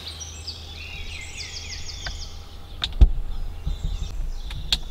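Woodland birds singing in short repeated trilled phrases over a low steady rumble, with a few sharp clicks, the loudest about three seconds in and another near the end.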